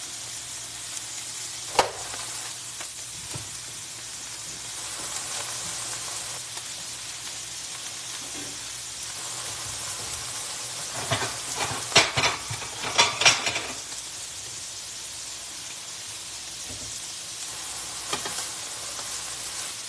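Chicken strips frying in a nonstick pan, giving a steady sizzling hiss. Sharp clicks and pops break in now and then, with the loudest cluster about eleven to thirteen seconds in.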